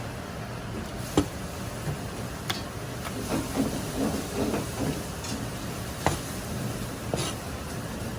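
Restaurant kitchen sounds: a steady hiss runs throughout, broken by four sharp clinks or knocks and some softer low clatter in the middle.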